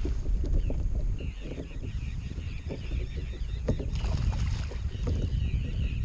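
Wind rumbling on the microphone, with splashes as a hooked largemouth bass thrashes at the surface, and a fast string of short high chirps from about a second in.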